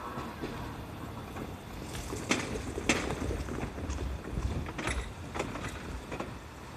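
Low rumble with a string of irregular clacks and thumps as wheels pass over the rails at a level crossing.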